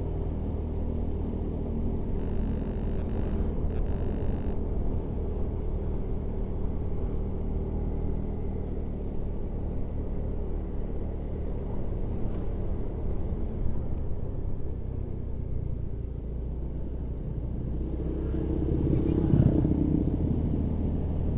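Steady drone of a vehicle's engine and road noise while driving, swelling louder for a couple of seconds near the end.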